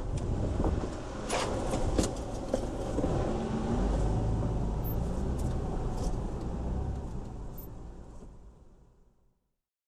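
Car running with a steady low rumble and a few sharp knocks in the first couple of seconds, then fading out to silence near the end.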